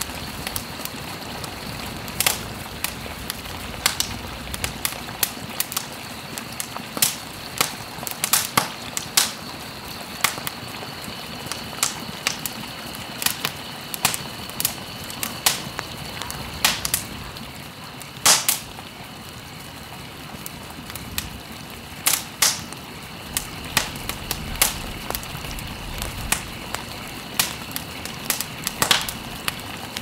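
Background nature soundscape: a steady rushing hiss with irregular sharp crackling pops, a few seconds apart and sometimes in quick clusters, over two faint steady high tones.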